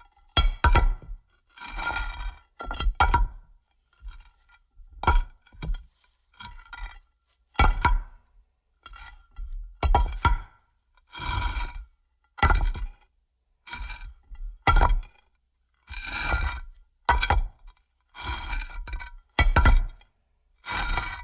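Designed stone-creature footsteps: a slow, uneven series of heavy rock impacts, each a deep thud with gritty, clinking stone debris and short scrapes on top.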